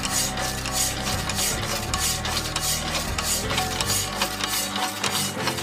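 Old power hacksaw, its blade stroking back and forth through steel railway track, each cut stroke scraping at a steady rhythm of about three a second over the hum of its small drive motor.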